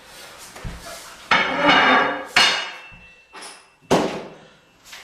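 Hard tools being handled and set down: a scraping clatter about a second in, then two sharp knocks, with a faint metallic ring.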